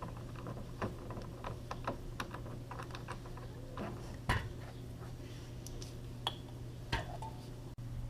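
Scattered light clicks and taps of small hard objects being handled, with a few sharper knocks, over a steady low hum.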